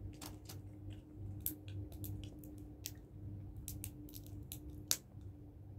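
Small clicks and handling noises from a screw-capped jar being twisted open, with one sharper click near the end, over a steady low hum.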